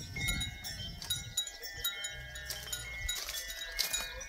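A hen fussing, with several steady high ringing tones at different pitches behind it.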